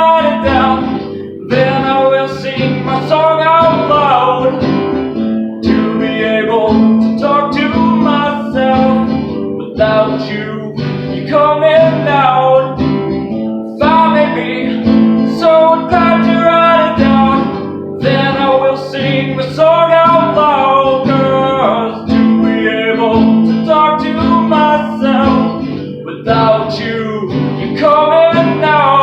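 Acoustic guitar strummed steadily while a man sings a folk song.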